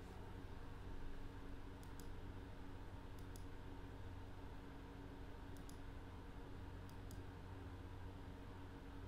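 Computer mouse clicking: four quick double clicks spaced a second or two apart, faint over a steady low electrical hum.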